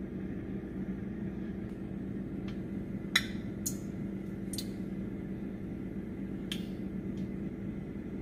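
Cooking oil heating in a stainless steel pot, giving a handful of scattered sharp pops, the loudest about three seconds in, over a steady low hum. The popping is the sign that the oil is getting hot enough to fry.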